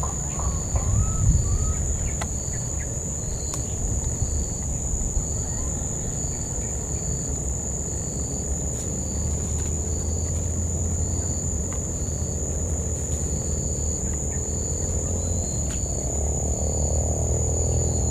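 Forest insects: one holds a steady high-pitched drone while another chirps in short, evenly spaced pulses about three every two seconds, over a low rumble.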